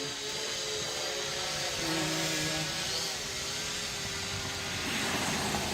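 ProMark Shadow GPS quadcopter drone in flight, its motors and propellers whining, the pitch shifting up and down as the drone corrects against gusty wind. A rush of noise comes in near the end.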